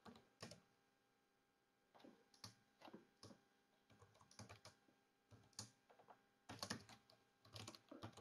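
Faint typing on a computer keyboard: irregular key clicks, with a pause of over a second near the start and a quicker run of keystrokes near the end.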